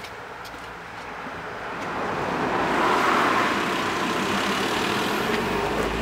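Road traffic: a car on the street, its tyre and engine noise swelling for about two seconds and then holding steady.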